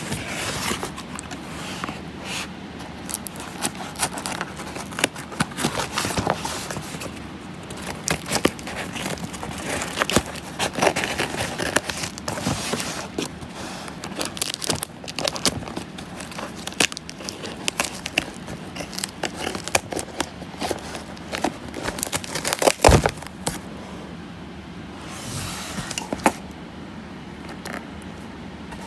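Cardboard shipping box being handled and torn open by hand: irregular crinkling, scraping and tearing of the cardboard, with one sharper, louder crack late on.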